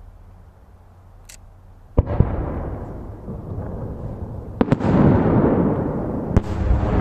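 Aerial firework shells bursting: a sharp bang about two seconds in, then more bangs near the middle and near the end. Each trails into a long rolling rumble, and the rumble grows louder as the bursts pile up.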